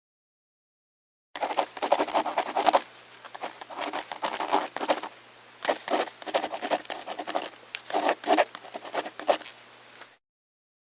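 Rapid, uneven scratching and scraping with sharp clicks. It starts abruptly about a second in, comes in several bursts, and cuts off suddenly near the end.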